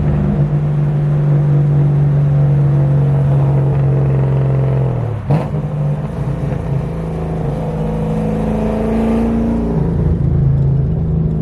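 Car engine running while driving, heard from inside the cabin. Its pitch falls and there is a sharp click about five seconds in, like a gear change, and the pitch shifts again near the end.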